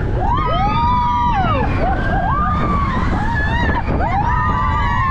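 Steel roller coaster train running along its track with a steady low rumble, while riders let out three long shouts that rise and fall in pitch.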